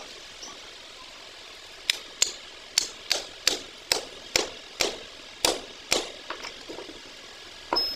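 Hand hammer striking metal on the end of an excavator track roller: about ten sharp blows at two to three a second, starting about two seconds in, then a few lighter taps and one last blow near the end.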